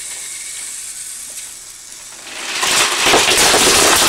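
Fisher-Price GeoTrax toy trains running on plastic track; about halfway in a loud, continuous rattling clatter starts and keeps going.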